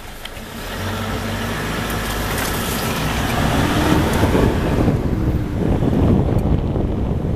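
A vehicle engine running steadily, joined by a low rumble of wind noise on the microphone that grows from about four seconds in.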